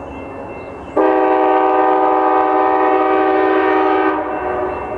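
Air horn of an approaching VIA Rail Siemens Charger passenger locomotive: one long blast of about three seconds, a chord of several steady notes, starting about a second in and cutting off about four seconds in, over the low rumble of the train.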